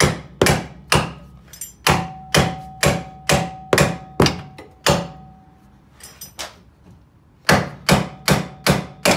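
Steel hammer blows on a pickle fork, driving it in to split an Opel GT's front ball joint from the steering knuckle. About two blows a second, with a metallic ring between blows in the first half, a pause of about two seconds, then a faster run of blows near the end.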